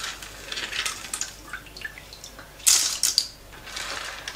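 Salted water dripping and splashing as a hand scoops tellinas (wedge clams) out of a bowl, with small clicks of the shells and a louder splash about two and a half seconds in.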